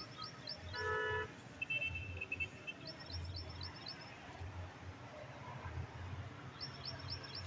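A bird repeats a quick phrase of about six high notes three times. A short vehicle horn toot about a second in is the loudest sound. A low uneven rumble runs underneath.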